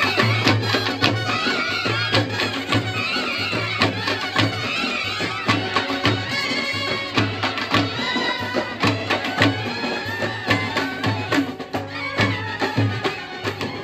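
Nadaswaram playing a wavering, ornamented melody together with a brass band and thavil drums keeping a steady beat: Kerala temple festival music.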